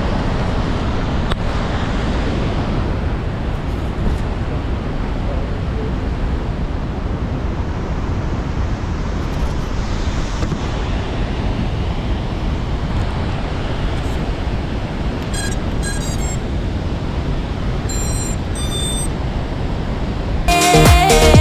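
Steady, loud rush of a flooded river running high after heavy rain.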